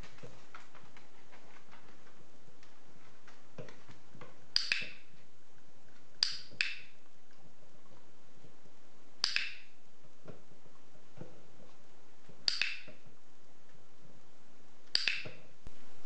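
Handheld dog-training clicker clicked five times, a couple of seconds apart; each click is a quick double snap as it is pressed and released. Fainter light ticks and taps run between the clicks.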